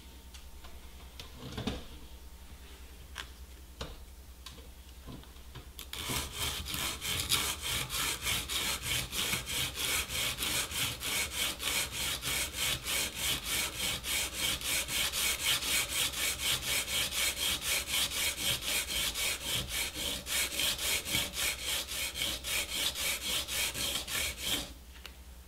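Cane clarinet reed blank rubbed back and forth by hand on coarse 50-grit sandpaper, flattening its back: a gritty scraping in fast, even strokes that starts about six seconds in and stops shortly before the end. Before that there are only a few light handling ticks.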